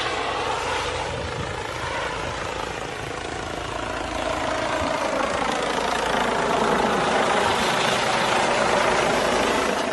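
Police helicopter's rotor and engine noise, a steady loud wash that grows louder through the second half as the helicopter comes low overhead.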